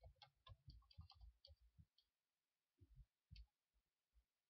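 Faint computer mouse and keyboard clicks: a quick run of clicks in the first two seconds, then one or two more near the end, with near silence between.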